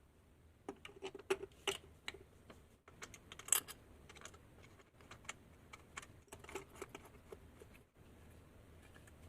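Irregular light clicks and taps from small objects being handled, coming in clusters with short pauses between them.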